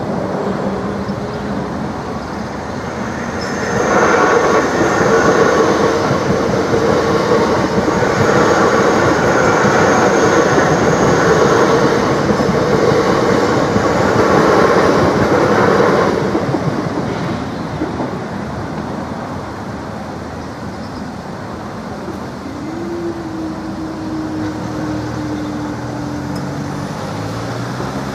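Class 465 Networker electric multiple unit passing at speed over a level crossing, loud for about twelve seconds with a faint high wheel squeal, then dying away. Near the end a steady tone sets in that slides slowly down in pitch.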